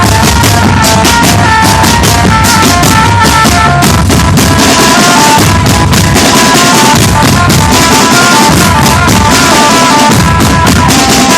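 Drum band playing loudly: snare and bass drums beat a steady, busy rhythm under a melody of short, high pitched notes.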